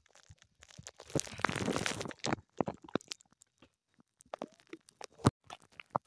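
Crackling, crunching handling noise on the camera's microphone as it is turned around in the hand: a dense scraping stretch about a second in, scattered clicks, and one sharp knock near the end.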